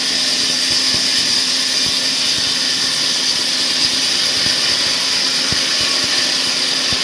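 Sawmill saw running steadily through palm wood: a loud, even hiss over a steady low hum.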